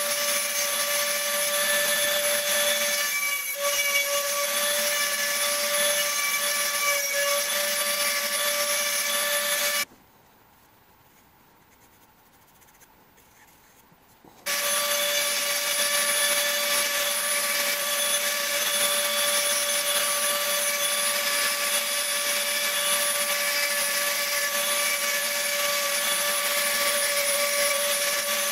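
Dremel rotary tool with a diamond burr grinding stone, a steady high-pitched motor whine. It cuts out abruptly about ten seconds in and starts again some four seconds later.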